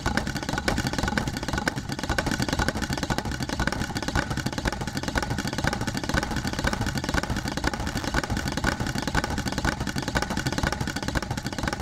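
Servo-driven wooden percussion modules of a robotic rhythm machine beating rapidly together, making a dense, continuous clattering roll of wooden strikes.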